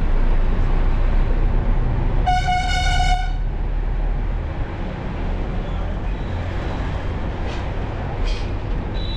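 Steady low engine and road rumble of a local bus on the move, heard from inside, with one vehicle horn blast about a second long starting a little over two seconds in.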